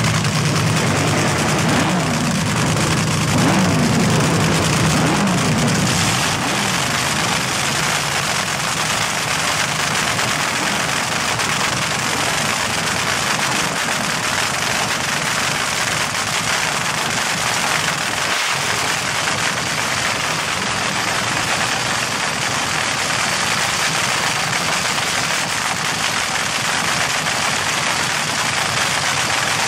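Nitromethane-burning dragster engine running at a loud, rough, crackling idle. Its pitch rises and falls a few times in the first several seconds, then it settles into a steady idle.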